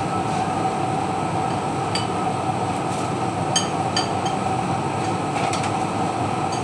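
Steady machine drone with a held hum, and a few short, ringing clinks of kitchenware about two, three and a half and four seconds in.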